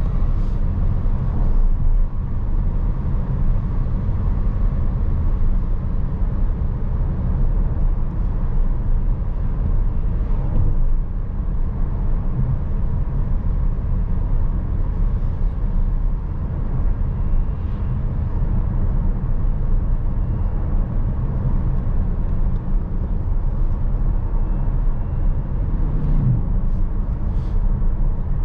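Tyre and road noise from a 2023 Tesla Model S dual-motor electric car driving steadily: a low, even rumble with no engine note.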